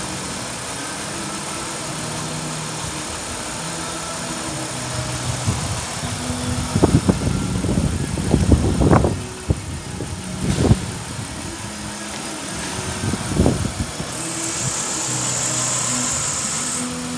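Holden Commodore 3.8-litre V6 engine idling steadily, revved in several quick blips of the throttle in the middle. A steady high hiss joins for the last few seconds.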